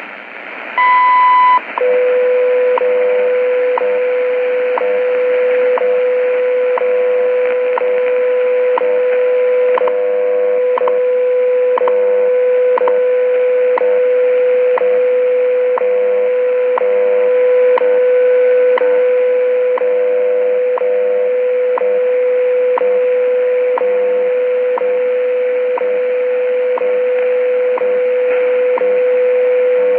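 WWV time signal received on a shortwave radio's speaker over steady static hiss. About a second in, a higher beep just under a second long marks the top of the minute. A steady lower tone then holds through the rest, broken by a short tick every second.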